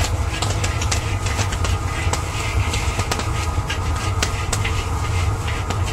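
Kettle corn popping and being stirred with a paddle in a large kettle: many scattered sharp pops and clicks over the steady low rumble of the propane burner under the kettle.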